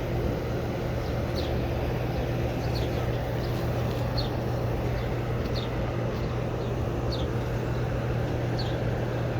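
Several outdoor air conditioner condenser units, Carrier and American Standard among them, running together with a steady fan and compressor hum. Short high chirps repeat about once a second over it.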